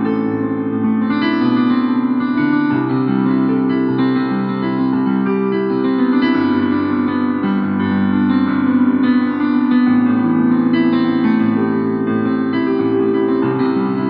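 Instrumental music: held keyboard chords in an electric-piano sound, changing every second or two, with no drums.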